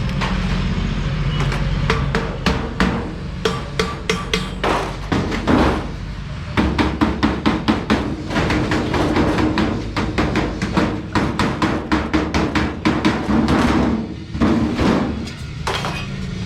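Hammer blows on sheet metal, struck in rapid irregular runs of several blows a second, over a steady low hum.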